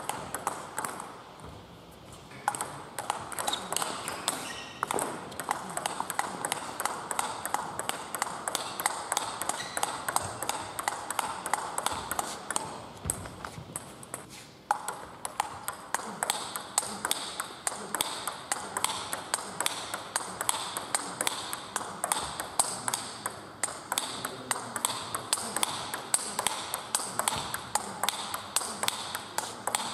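Table tennis rally: the ball struck back and forth by the bats and bouncing on the table, a quick, steady run of sharp clicks that breaks off briefly twice, early on and about halfway.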